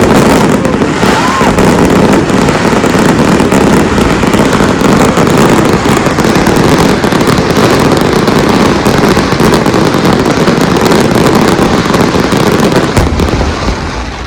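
Fireworks barrage: a dense, continuous run of rapid bangs and crackling bursts, thinning out near the end.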